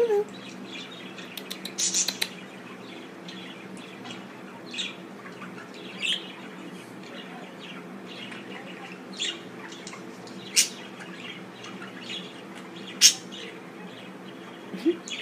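Budgerigars chirping and squawking in short, scattered calls, with sharp louder chirps about 2, 10.5 and 13 seconds in, over a faint steady hum.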